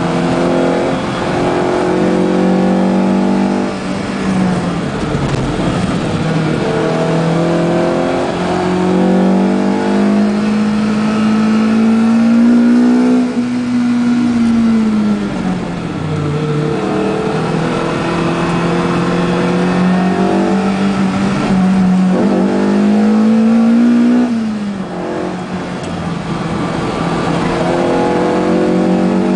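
BMW M3 E30's four-cylinder DTM race engine heard from inside the cabin at track speed. The engine note climbs slowly and falls back twice, about halfway through and again near the end, over a steady haze of road and wind noise.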